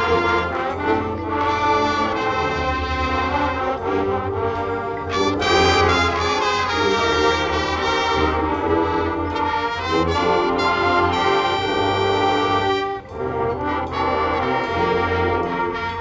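Marching band brass section (trumpets, trombones, mellophones and sousaphones) playing sustained chords over percussion, with a brief drop in loudness about thirteen seconds in.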